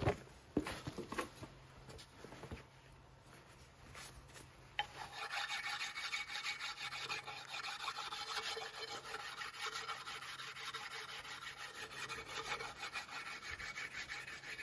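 Rapid back-and-forth rubbing strokes along a wooden axe handle, a steady rasping that starts about five seconds in, after a few knocks and shuffles.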